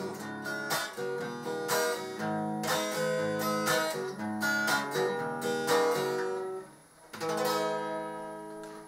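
Acoustic guitar strummed after the last sung line, playing the closing chords of the song. It pauses briefly about two-thirds of the way through, then one final strummed chord rings out and fades.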